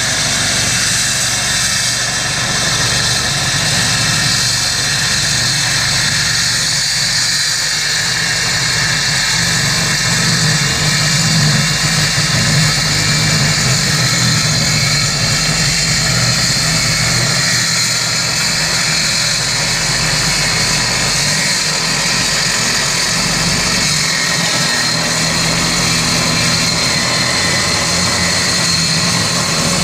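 Skil worm-drive circular saw with a Diablo Steel Demon metal-cutting blade ripping lengthwise through 1/4-inch steel plate. The saw runs under load with a steady, loud, dense cutting noise that carries a few steady tones.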